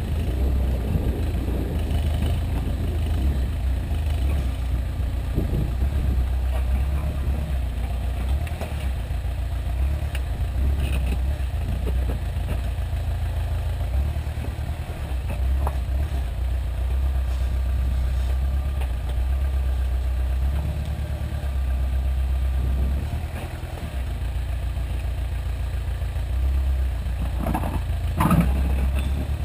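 Engine of a homemade tow-behind backhoe running steadily while the boom and bucket dig, its low note swelling and dipping every few seconds as the machine works. A few sharp knocks near the end.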